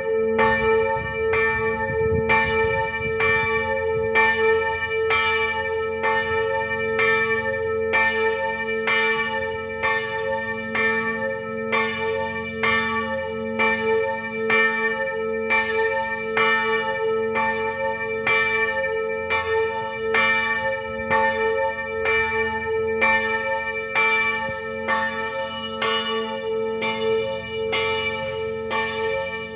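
Church bells ringing continuously, with strokes at about two a second over a steady hum note.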